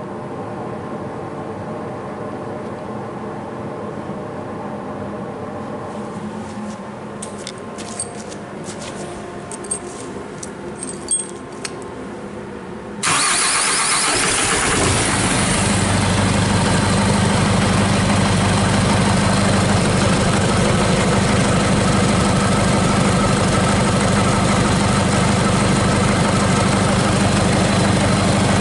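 Hyundai D4DD four-cylinder diesel engine, run outside the vehicle on a test start: after a few faint clicks it cranks and fires suddenly about halfway through, then settles into a steady idle.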